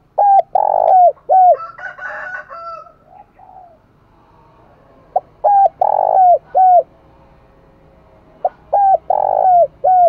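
Spotted dove cooing in three phrases about three to four seconds apart. Each phrase is a quick run of short notes with falling ends around one longer note.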